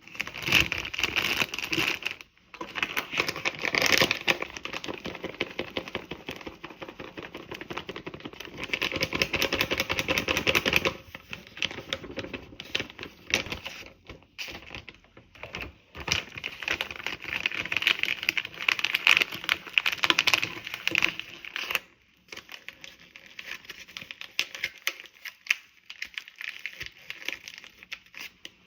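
Hotteok frying in oil in a pan: a dense, continuous sizzle and crackle of oil around the dough, breaking off briefly a few times.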